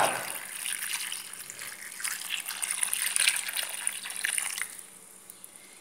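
Ice-cold water poured from a jug into a glass bowl of sliced cucumber and onion, gushing and splashing steadily, then stopping near the end.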